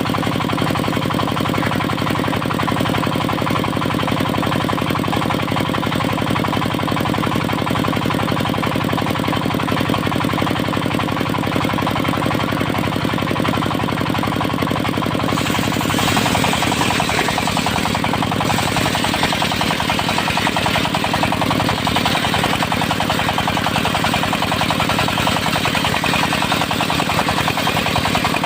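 Portable circular sawmill running steadily on its engine with a rapid knocking beat. About halfway through, a loud rushing hiss joins: the saw blade cutting into teak.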